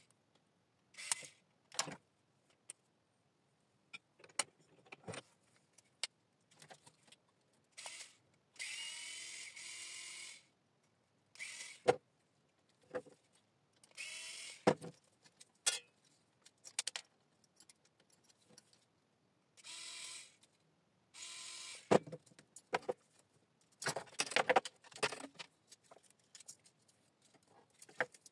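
Small cordless electric screwdriver running in short bursts of a second or two as it backs out screws from a metal meter part, between sharp clicks and clinks of metal parts being handled. The footage is sped up.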